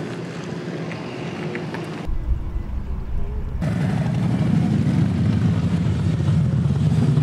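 Roadside traffic noise: a vehicle engine running, louder and steadier in the second half, with a short deep rumble about two seconds in.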